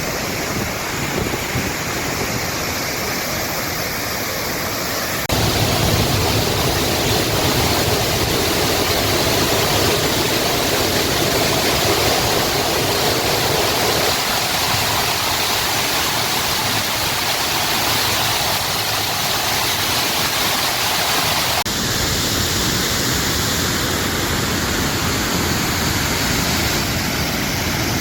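Waterfall water pouring and rushing in a steady roar of noise. It turns abruptly louder and fuller about five seconds in, and shifts back to a thinner sound about 22 seconds in.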